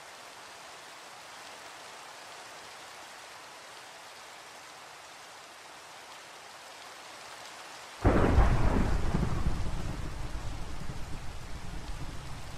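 Steady rain, then after about eight seconds a sudden loud clap of thunder that rolls on as a low rumble, slowly fading.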